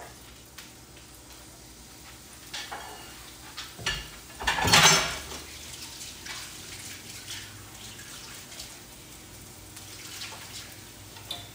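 Kitchen work sounds: pots and dishes being handled along with running or poured water. The loudest is a short noisy rush about halfway through, and a few lighter clatters come before and after it.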